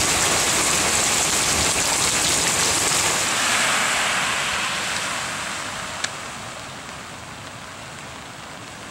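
Heavy rain pouring down steadily. About four seconds in, a Chevrolet HHR's tyres splash through a flooded street while the rain is quieter. A single sharp click comes about six seconds in.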